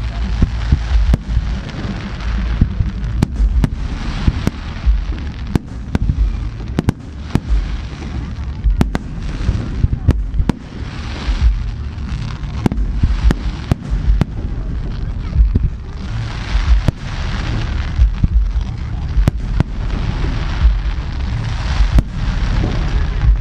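Aerial fireworks display: shells bursting in quick succession, with sharp bangs about once or twice a second over continuous crackling and rumbling.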